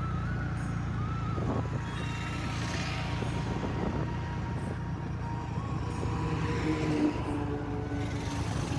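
Single-cylinder engine of a TVS Ntorq 125 scooter running at road speed, under a steady low rumble of wind over the microphone.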